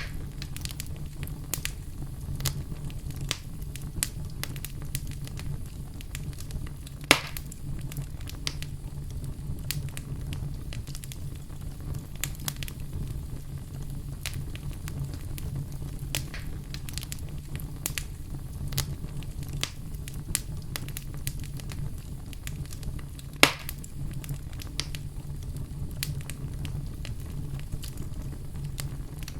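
Wood fire burning in a fireplace: a steady low rumble of flame under constant small crackles, with two louder sharp pops, one about a quarter of the way in and one about three quarters in.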